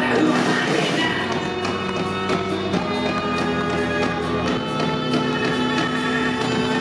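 Live rock band playing an instrumental passage with no vocals: drums and guitar.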